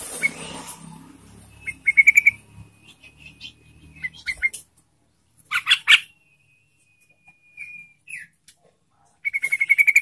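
Yellow-vented bulbul (trucukan) singing: short bursts of rapid chattering notes about two seconds in, near six seconds, and a longer run near the end, with thin high whistled tones between them.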